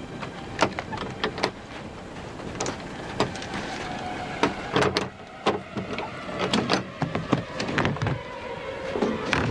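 Latches and fittings on a large shipping crate clicking and knocking as they are undone, then the lid clattering as it is lifted, with a heavier knock at the end.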